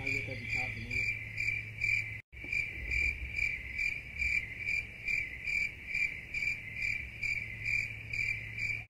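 Crickets chirping in an even, repeating rhythm of about two chirps a second, with a brief dropout about two seconds in.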